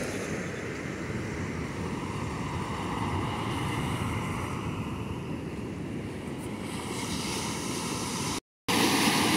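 Ocean surf washing up on a beach, a steady rushing noise with wind buffeting the microphone. The sound cuts out for a moment near the end and comes back louder.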